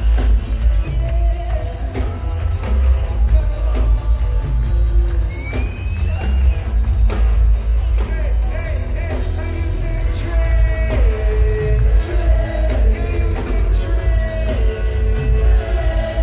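Live reggae band playing with a singer's voice over the top, heard through the PA with a heavy, steady bass line.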